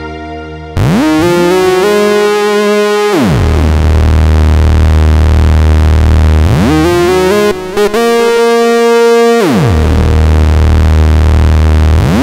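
Nord Lead A1 virtual-analog synthesizer playing its "Bob's Lead" patch. A lead line starts just under a second in and swoops steeply down and up in pitch between phrases, about every three seconds, over a steady low bass note. The sound breaks off briefly about two thirds of the way through.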